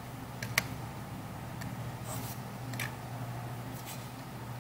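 A few light, scattered ticks of a gloved fingertip tapping and swiping on an iPhone's glass screen, over a steady low hum.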